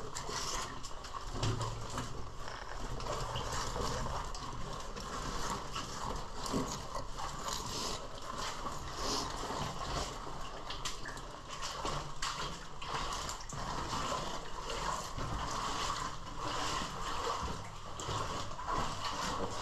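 Water sloshing and splashing irregularly as a caver wades through a knee-deep pool in a low cave passage.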